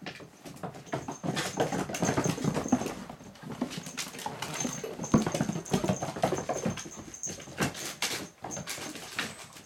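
Seven-week-old Doberman puppies play-fighting: dog play-growls and small vocal noises, with claws clicking and scrabbling on a wooden floor, busiest in two bursts about a second and five seconds in.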